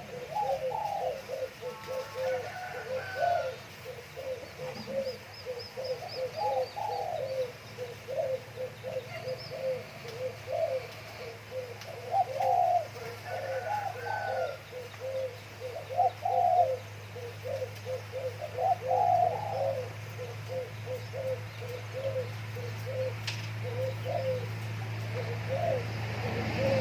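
Cock doves cooing repeatedly, answering each other in a steady run of short coos with louder, higher phrases every few seconds. A faint low hum grows louder near the end.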